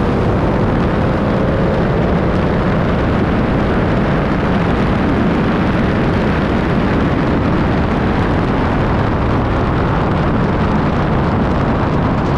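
Two Dodge Hellcat V8s at full throttle in a race: a twin-turbo 426 stroker Hellcat Challenger against a modified supercharged Hellcat Charger. The engine noise is loud and steady throughout.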